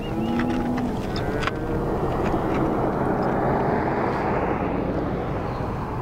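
Cattle lowing in the first second, then a vehicle passing on the highway: a rushing noise that swells and fades over about four seconds.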